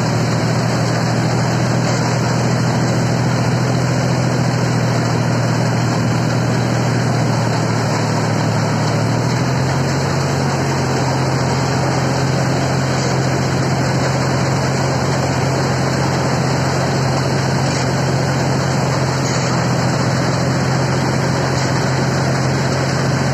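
Diesel engine of a John Deere tractor-mounted mini harvester running steadily under load while it cuts paddy, with a broad mechanical hum over it. The engine note steps up slightly about nine seconds in.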